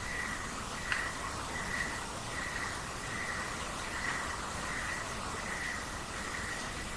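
Night nature ambience: a single high chirping call repeats evenly, a little more than once a second, over a steady hiss, with one short click about a second in. No owl hoot is heard.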